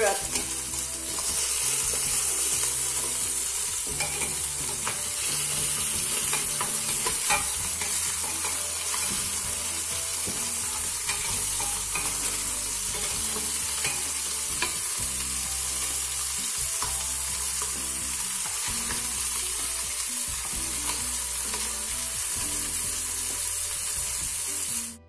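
Beef rouladen sizzling steadily as they sear in hot oil in an open stainless pressure-cooker pot, with occasional light clicks of the spatulas against the meat and pot.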